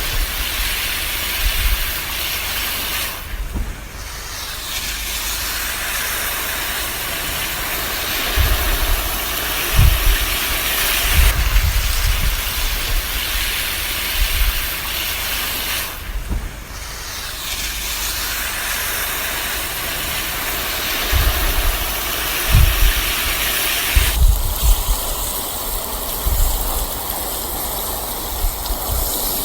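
Garden hose spraying water onto plants: a steady hiss of spray that thins briefly twice as the stream shifts, and changes tone near the end as it lands on a different spot. Occasional low rumbles sit underneath.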